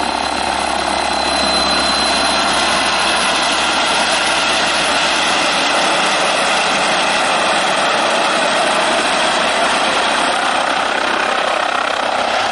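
Airbus ACH145 D3 (five-bladed H145) helicopter hovering and manoeuvring low, its twin turboshaft engines, main rotor and fenestron tail rotor making a loud steady noise that swells slightly about a second and a half in.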